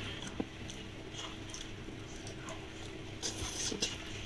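A person chewing a mouthful of chicken close to the microphone: soft smacking and small wet clicks, with a sharp tick about half a second in and a short cluster of clicks about three and a half seconds in.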